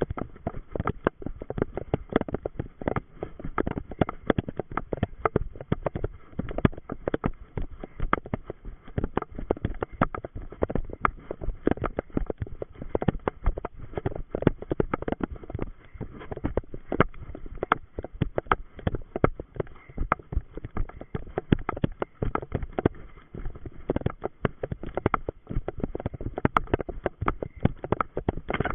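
A runner's footsteps through forest undergrowth and moss: a dense, irregular run of thuds and rustles as grass and plants brush against the body-worn camera with each stride.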